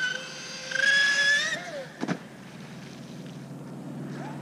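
Joysway Bancroft Mad Flow V3 RC tunnel boat's brushless electric motor, on a 4S battery, whining at speed. The pitch climbs to its loudest about a second in, then drops away. A sharp click about two seconds in, followed by a lower, rougher buzz as the boat runs far out.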